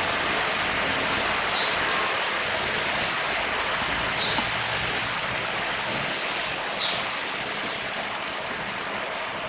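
A caged white-eye (mata puteh) gives three short, high chirps over a steady hiss, the last and loudest about seven seconds in.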